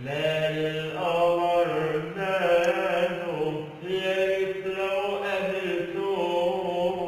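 A man singing long, wavering held notes without recognisable words, sliding between pitches in Arabic vocal style, over a steady low drone.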